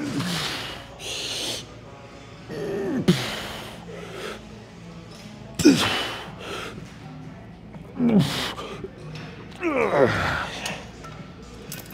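A man breathing hard through a set of single-arm cable lat pulls, with a forceful exhale and a short grunt falling in pitch on each rep, five in all, about every two to three seconds, and quicker breaths between them.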